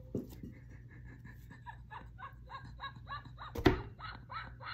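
A woman laughing in a run of short, breathy giggles, startled by a tarot deck popping out of its tin. Near the end comes a single sharp knock as her hands come down on the metal tin.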